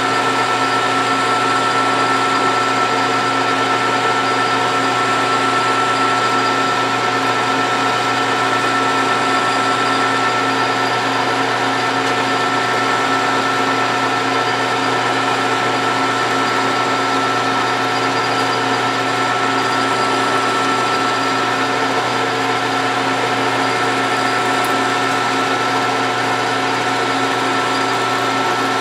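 Metal lathe running steadily while a lathe tool takes a turning cut along steel bar stock, throwing a curling chip. A steady machine whine with several held tones over the hiss of the cut.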